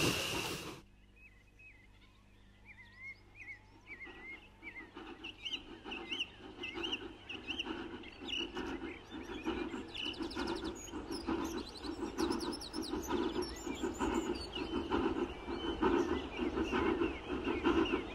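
A train sound with steam hiss cuts off suddenly under a second in, leaving birdsong. From about four seconds in, the rhythmic exhaust beats of a distant steam locomotive working hard grow steadily louder as it approaches.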